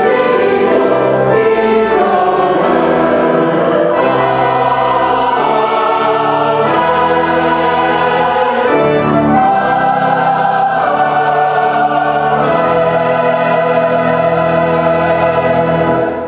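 Mixed church choir singing with keyboard accompaniment, closing on a long held chord that stops near the end.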